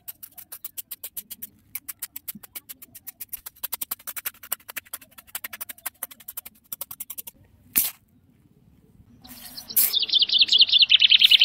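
A small hand tool digging into dry, sandy soil: a fast run of crunchy clicks, several a second, with one louder knock at about eight seconds. Near the end a bird's fast, high trill comes in, louder than the digging.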